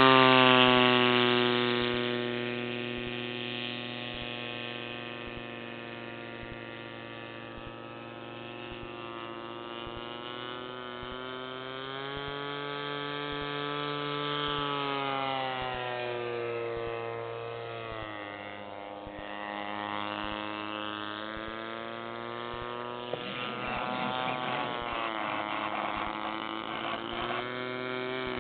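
A small propeller engine in flight, heard as one buzzing note whose pitch slowly falls and rises again and again as it passes and turns. It is loudest at the start, fades, then comes nearer again near the end with some crackling noise over it.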